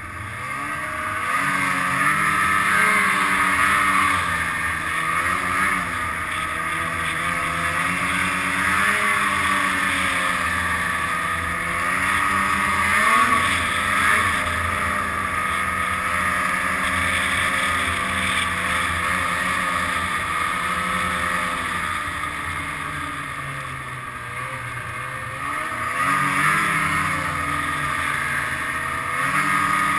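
Snowmobile engine running under way along a trail, its pitch rising and falling every few seconds as the throttle changes, with a steady rushing hiss over it.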